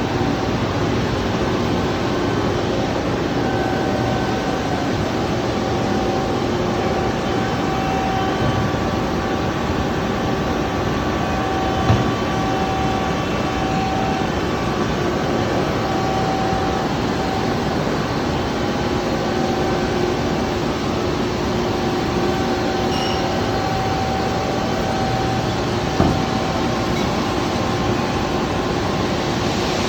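HEM V120HA automatic-feed bandsaw running, a steady machine noise with a whine that fades in and out. Two short knocks come about fourteen seconds apart.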